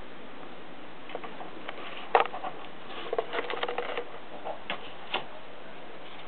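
Irregular light clicks and taps of Siberian kittens playing, over a steady hiss. The sharpest click comes about two seconds in, and a quick run of taps follows a second later.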